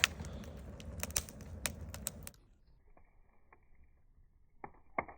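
Wood fire in a rocket fire pit crackling, with sharp pops over a steady rush. About two seconds in, the sound suddenly drops to a faint, muffled crackle with a few pops near the end.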